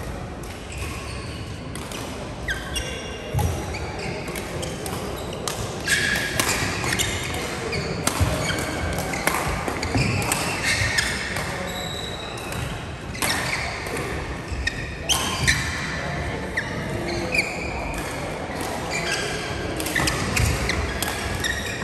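Badminton rackets striking shuttlecocks: many sharp hits at irregular intervals, mixed with short high squeaks of court shoes, echoing in a large hall.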